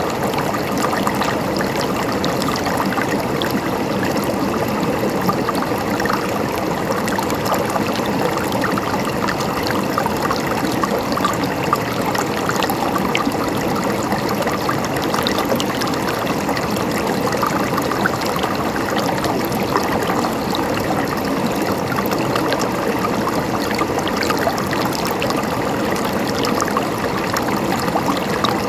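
Mountain stream flowing steadily, a continuous babble and trickle of water with fine splashes.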